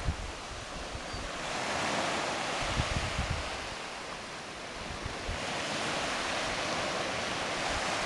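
Surf breaking and washing over a beach of round pebbles, swelling twice, with wind buffeting the microphone in low thumps.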